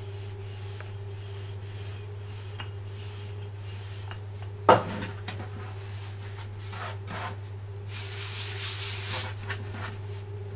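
Hands and a wooden rolling pin working soft bread dough on a floured worktop: soft rubbing and brushing, with one sharp knock about halfway through and a louder scraping rub near the end. A steady low hum runs underneath.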